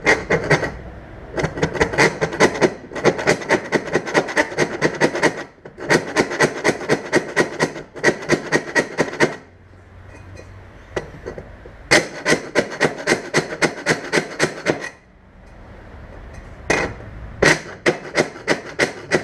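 A hand file rasping back and forth in the hole of a metal Studebaker headlight reflector, in runs of quick, even strokes about four or five a second, with the bowl ringing under them and two short pauses. It is noisy even though the file is worked with little pressure.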